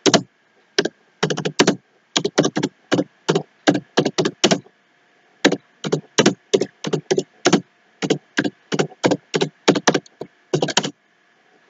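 Typing on a computer keyboard: a quick, uneven run of key clacks with a few short pauses, stopping shortly before the end.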